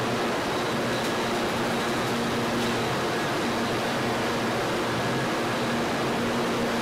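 Steady machinery noise: an even hiss with a low hum and a few faint steady tones. It does not change over the whole stretch.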